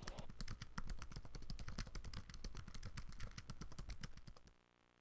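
A rapid, even run of sharp clicks, about ten a second, like fast typing, which cuts off abruptly about four and a half seconds in.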